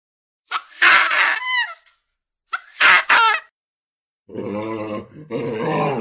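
Baboon calls: two loud, sharp barks about two seconds apart. From about four seconds in comes a continuous run of lower-pitched calls.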